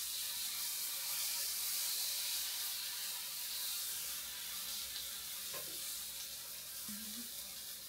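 Thin batter sizzling as it is poured into the hot, oiled cups of an electric takoyaki pan. It is a steady high hiss that eases off a little toward the end.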